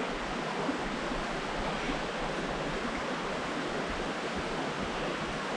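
Steady rushing of a small river's running water.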